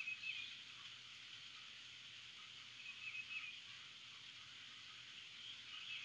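Steady hiss of rain, with a bird giving a short call about every three seconds.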